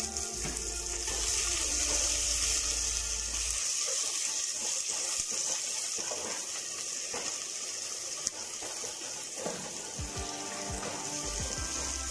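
Chopped onions and capsicum sizzling in hot oil in a steel pot, a steady high hiss. From about four seconds in, a spoon stirs and scrapes against the pot with short irregular clinks.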